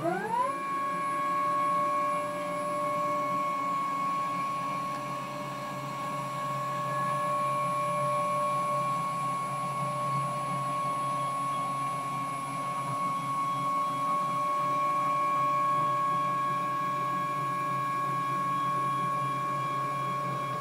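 Stepper motors driving a home-built wooden CNC router's gantry along acme threaded rods in a rapid move back to its origin home position. A steady whine that sweeps up in pitch as the motors speed up at the start and sweeps down as they slow to a stop at the end.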